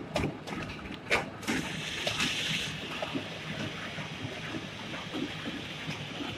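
Bouillon cube wrapping machine running: sharp mechanical clicks several times a second, then from about a second and a half in a steady hiss over irregular low knocking.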